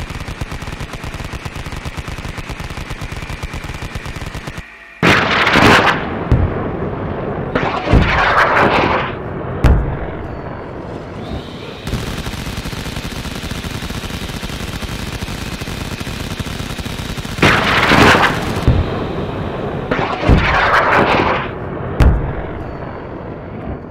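Battle sound effects: rapid machine-gun fire with heavy explosions. The rattle breaks off a few seconds in, several loud blasts follow, the rattle returns about halfway through, and three more blasts come near the end.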